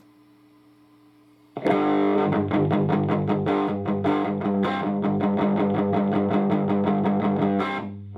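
Electric guitar played through a guitar amplifier with light overdrive: after a faint amp hum, it comes in about a second and a half in with quick, evenly picked notes over ringing chords, about five a second, and dies away near the end.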